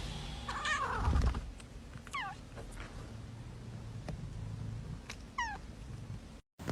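A cat meowing several times: a wavering call about a second in, then two short meows that fall steeply in pitch, about three seconds apart.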